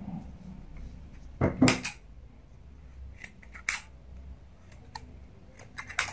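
Steel scissors snipping off the excess nylon stocking and thread at the base of a wrapped wire petal: a series of short snips and clicks, the loudest pair about a second and a half in.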